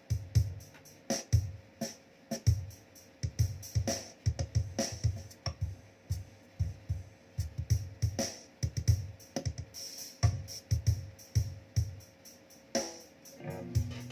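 Programmed drum-machine beat from the Zoom G1Xon multi-effects pedal's built-in rhythm function, a steady pattern of drum hits with low thumps. A held electric guitar note comes in near the end.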